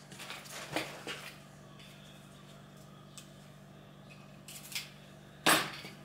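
Hands working a roll of double-sided mounting tape: faint rustles and clicks, then a short, loud rasp of tape being pulled off the roll near the end.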